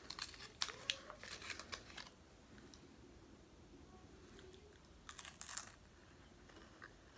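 Candy wrapper crinkling and tearing in quick crackles for about two seconds as a chocolate-covered wafer candy is unwrapped. About five seconds in, a short crunchy burst as the wafer candy is bitten.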